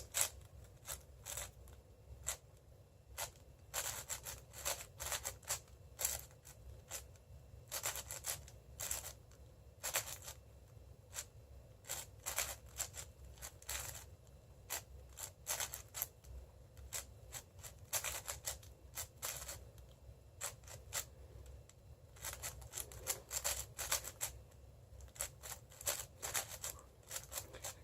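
A 6x6 speed cube being turned quickly by hand during the edge-pairing stage of a solve. Its plastic layers click and scrape in rapid bursts, with short pauses between the bursts.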